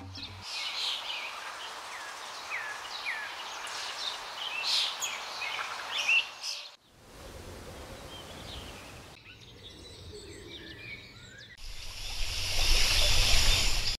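Birds chirping with short rising and falling calls over an even hiss of outdoor ambience; the sound cuts about halfway through to a quieter ambience, and near the end a loud steady rushing noise comes in and stops abruptly.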